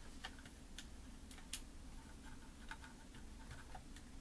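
Faint, scattered light clicks and taps of small parts being handled inside an opened Mac mini while its Wi-Fi antenna is fitted into place, with one sharper click about a second and a half in.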